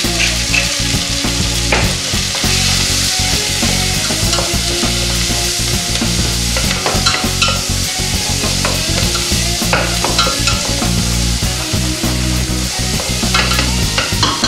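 Cauliflower sizzling as it roasts in butter and olive oil in a stainless-steel pot, stirred with a wooden spatula that scrapes and knocks against the pan. A pepper mill grinds briefly at the start.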